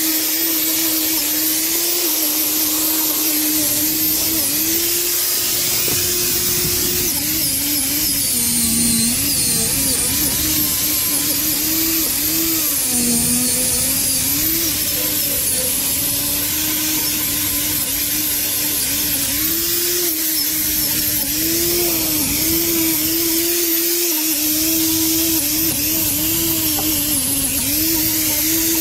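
Electric angle grinder running with an abrasive attachment against the metal trolley, scouring off rust and muck: a steady motor whine that sags in pitch several times, over a constant high scraping hiss.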